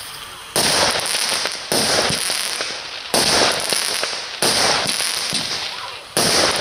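A 25-shot combination firework cake firing: five sharp bangs, roughly one every second and a half, each trailing off over about a second.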